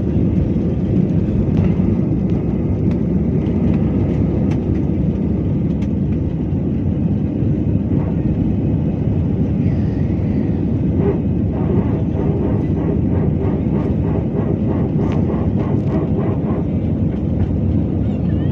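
Jet airliner taking off, heard from the cabin beside the wing: the engines at takeoff power make a loud, steady, low rumble through the takeoff roll, the liftoff and the initial climb.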